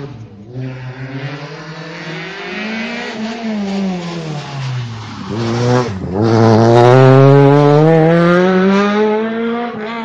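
Peugeot 208 rally car's engine at high revs. The revs climb on the approach, then fall as the car slows into a tight hairpin, with a sharp dip about six seconds in. Then they rise steadily as it accelerates hard out of the bend, loudest just after the dip.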